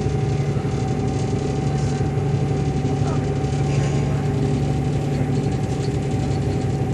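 A passenger ferry's engine running steadily under way: a constant low hum with a fainter, higher steady tone above it.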